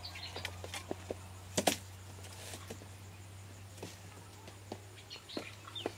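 Scattered light knocks and clatter of dry bamboo poles and panels being carried and set down, with a sharper double knock about a second and a half in.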